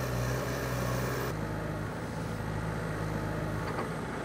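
Komatsu HB205-1 hybrid excavator's diesel engine running steadily. Its tone changes abruptly about a second in, and a faint high whine rises just before that.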